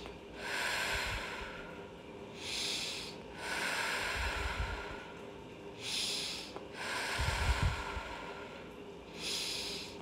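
A woman breathing deeply and slowly, about three in-and-out breaths, each a soft rush of air with a short pause between.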